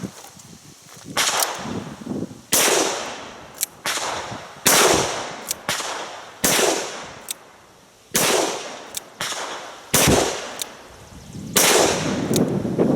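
A Ruger Blackhawk single-action .357 Magnum revolver fired repeatedly, a shot about every one and a half to two seconds, each with a trailing ring-out. Fainter sharp clicks fall between the shots.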